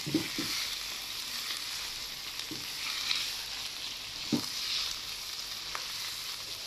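Raw chicken pieces sizzling in hot oil with fried onions in a nonstick wok, in the first frying until the chicken turns white. A spatula stirs them, scraping and knocking against the pan a few times.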